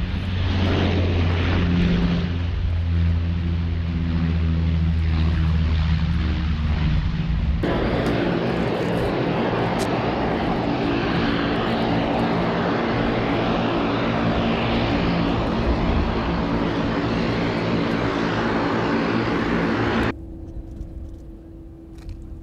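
Twin-engine turboprop airliner's engines and propellers running: a deep, droning hum as it lands, then, after an abrupt change about seven seconds in, a louder noise with a whine as it taxis close by. About two seconds before the end the sound drops suddenly to a quieter steady hum.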